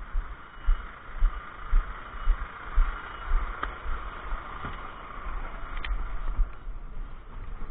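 Footsteps thudding about twice a second on wet tarmac, picked up close by a body-worn camera, over the steady running of a DAF 370 hook-loader lorry with its PTO engaged. The footsteps give way to a steadier sound about five seconds in as the cab is climbed into.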